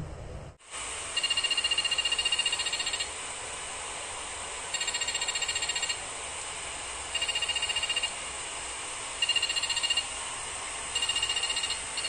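Piezo buzzer on a home-made IR remote tester giving high-pitched, rapidly stuttering beeps, five separate bursts of one to two seconds each. Each burst is a remote-control button being pressed at it: the buzzer follows the remote's infrared pulses, showing that the remote is sending.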